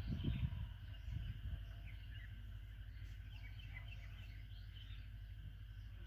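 Small birds chirping faintly and intermittently over a steady low rumble of wind or handling on the microphone.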